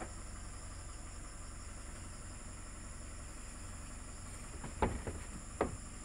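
Pickup truck engine running with a steady low rumble, under a constant high buzz of insects; two sharp knocks near the end.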